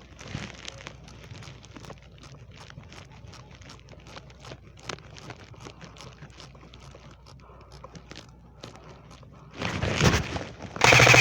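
Quiet rustling and scattered light clicks of movement and gear. Then, about nine and a half seconds in, a loud burst of noise with rapid clicks, growing louder toward the end.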